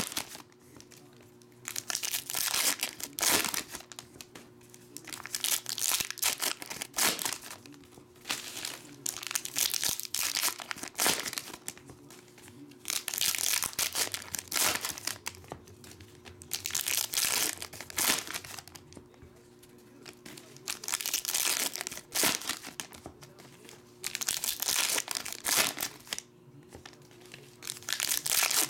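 Foil trading-card pack wrappers crinkling and tearing as the packs are ripped open and peeled apart by hand, in repeated bursts every couple of seconds with short quieter pauses between them.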